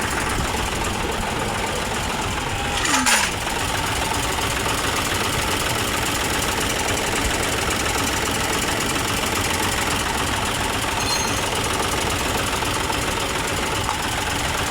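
Hino Profia's K13C inline-six diesel engine running steadily with a knocking diesel clatter, now starting and running after a cranks-but-won't-start fault. A brief louder burst comes about three seconds in.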